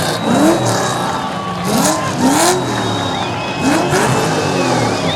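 Holden Commodore's LS2 V8 revving hard while drifting, its pitch climbing in about four quick rising sweeps as the throttle is worked.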